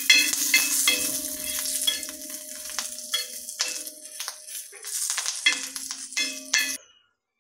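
Curry leaves sizzling in hot oil on a cast-iron dosa tawa, with a metal spatula scraping and tapping the pan as it turns them. The sound cuts off suddenly near the end.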